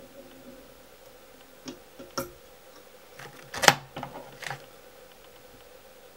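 A few light clicks and taps from fly-tying tools being handled at the vise, the loudest a sharp click a little over halfway through, over a faint steady hum.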